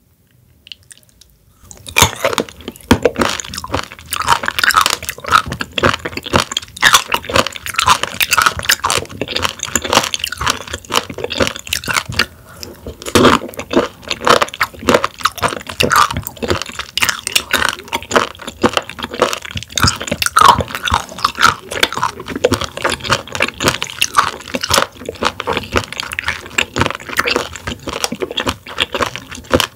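Close-miked crunchy chewing of raw warty sea squirt: dense, irregular crisp crunches and wet crackles of the tough tunic being bitten and chewed, starting about two seconds in after a short quiet.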